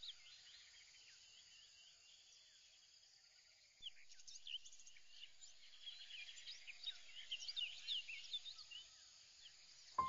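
Faint ambience of many small birds chirping over a light hiss. The chirping is sparse at first and grows busier about four seconds in.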